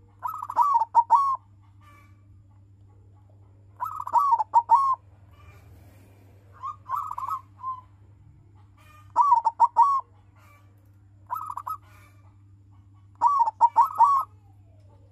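Zebra dove (perkutut) cooing its song: six short phrases, each a quick run of notes, repeated every two to three seconds.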